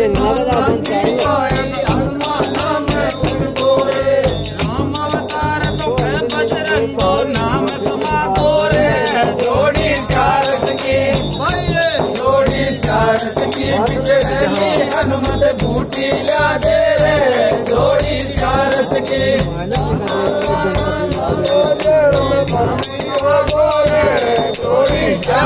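Rajasthani Holi dhamal folk song: men singing in a group over a steady rhythm of jingling hand cymbals (manjira) and frame drum (chang).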